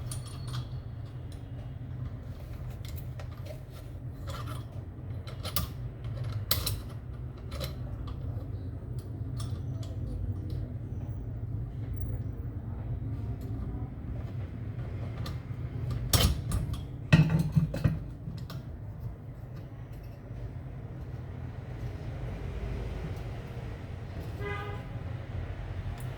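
A steady low mechanical hum with scattered light clicks and knocks, and a louder clatter of knocks about two-thirds of the way through.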